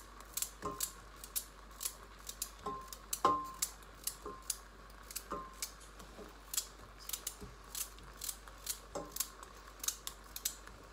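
A kitchen knife slicing through a raw carrot held in the hand: quick, crisp cuts, about three a second. Now and then a louder knock with a short metallic ring from the steel pot as slices drop in.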